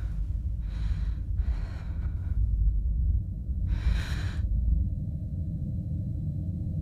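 A woman breathing hard: three audible breaths in the first four and a half seconds, the last the loudest. A steady low drone runs underneath.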